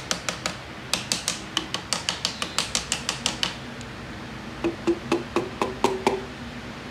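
A piston ring compressor being worked on an M133 engine block: a quick even run of sharp clicks, about five a second, as the compressor band is tightened round the piston with a wrench. Then a second run of harder knocks with a short ring as the piston is tapped down through the compressor into the cylinder bore.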